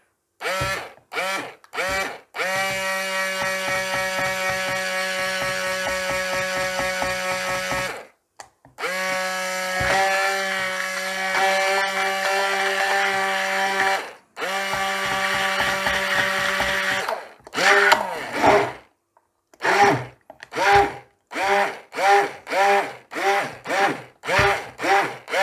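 Electric stick blender running in thickening soap batter, a steady motor whine. It starts with a few short pulses, then runs for several seconds at a time with two brief breaks, then is pulsed in about ten short bursts near the end. The batter is blended to trace.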